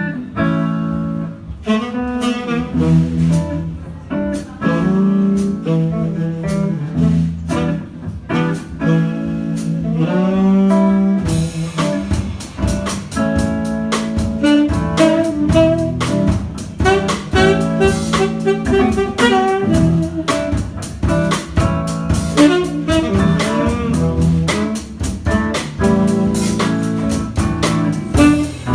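Jazz improvisation on saxophone and guitar, the saxophone playing shifting melodic lines over the guitar. From about eleven seconds in the playing gets busier, with frequent sharp percussive hits.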